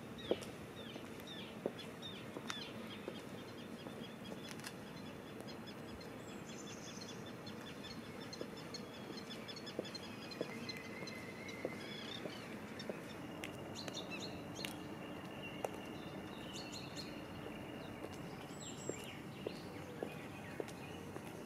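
Birds chirping over a steady background hum, with scattered sharp clicks. Near the end the clicks fall into an even walking rhythm of high-heeled shoes on pavement.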